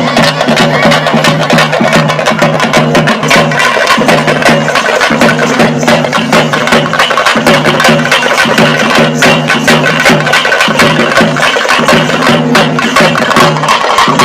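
Fast, loud traditional drumming, dense rapid strokes over a steady low droning tone.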